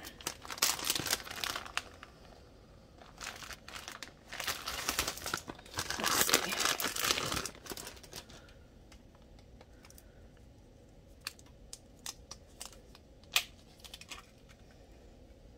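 Clear plastic wrapping around a wax melt cake crinkling loudly as it is handled and opened, in bursts over the first half and loudest about six seconds in. After that it is quieter, with a few small clicks and taps and one sharper click near the end.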